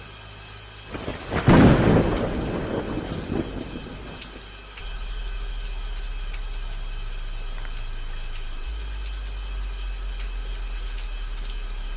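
A thunderclap about a second and a half in, rumbling away over the next couple of seconds, over steady rain with scattered drips. A low steady hum comes in about five seconds in and holds to the end.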